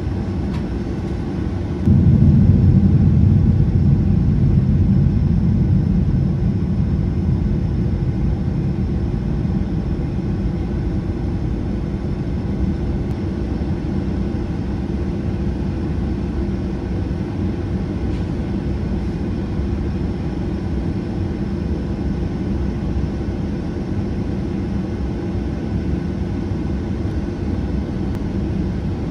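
Cabin noise of a Boeing 737-800 taxiing, its CFM56-7B engines running at taxi power as a steady low rumble. The rumble jumps louder about two seconds in, then eases off slowly over the next several seconds.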